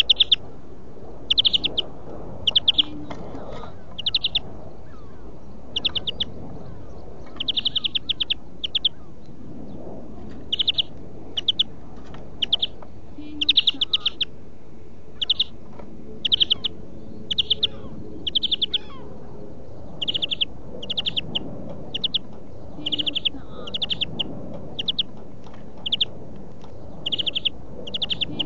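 European greenfinch singing: short, high, rattling trilled phrases, one or two a second and often in quick runs, over a steady background hiss.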